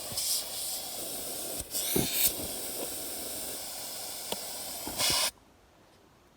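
Steady hissing noise with three louder rushes of hiss and a few light knocks, cutting off abruptly about five seconds in.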